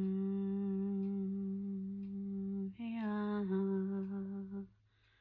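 A woman's voice humming long, steady, low tones as ancestral sound toning. One note is held, then after a brief breath a second note starts a step higher and settles back to the first pitch before stopping a little before the end.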